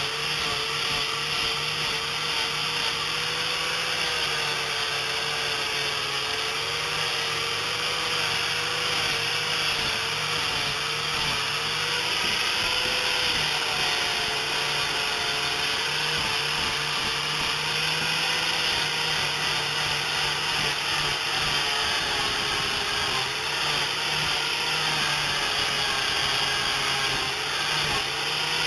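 Angle grinder with a sanding disc running steadily while sanding the fiberglass-and-epoxy seams inside a plywood boat hull, its motor whine wavering slightly in pitch over the rasp of the disc.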